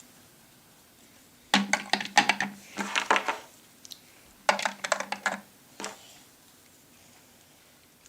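Small plastic toys clicking and clattering as they are handled, in two bursts of rapid knocks, one starting about a second and a half in and another about four and a half seconds in.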